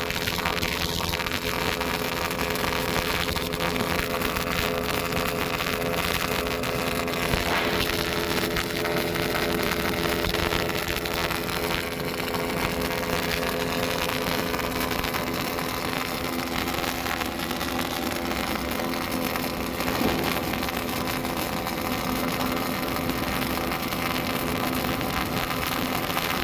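Steady machine noise from a robotic welding setup: a continuous crackling hiss, with a steady low hum underneath.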